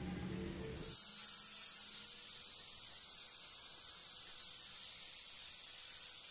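Angle grinder running with a finishing disc on a TIG-welded stainless steel pipe joint, smoothing the weld. It starts about a second in as a steady high whine over hiss.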